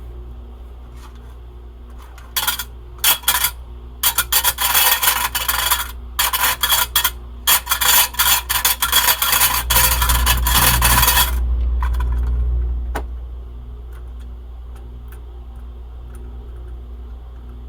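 Rasping scrape and rub in quick, irregular bursts for about nine seconds, then it stops abruptly; a low hum swells under the last few seconds of it and fades soon after.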